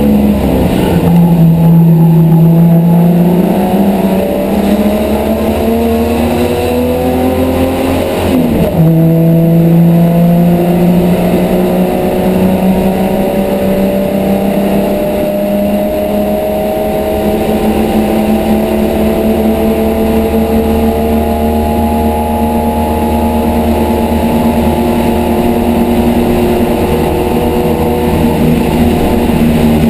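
Race car engine heard from inside the cabin under hard acceleration. Its pitch drops at a gear change about eight and a half seconds in, then climbs slowly and steadily for the rest of the time.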